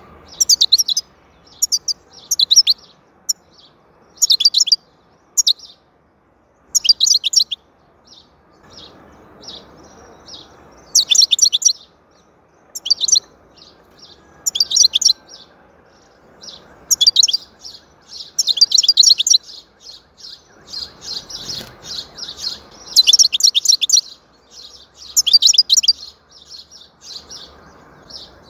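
Caged European goldfinch singing: bursts of rapid, high twittering, in short phrases at first and then in longer, denser runs in the second half.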